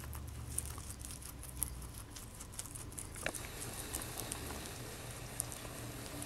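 Guinea pig chewing curly kale: quick, irregular crunching and crackling of the leaves between its teeth.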